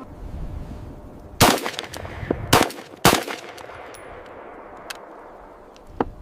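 Gunshots: three loud shots in quick succession about one and a half to three seconds in, each with a short ringing tail, then two fainter cracks near the end, over a low steady rumble.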